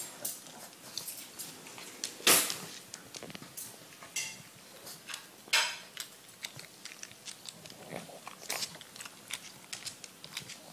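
Pug chewing and eating a piece of cheddar cheese: a run of short wet mouth clicks and smacks, with two much louder sharp sounds about two and five and a half seconds in.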